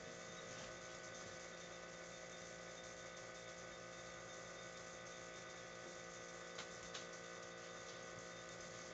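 Faint steady electrical hum made of several fixed tones over a light hiss, with two faint ticks late on.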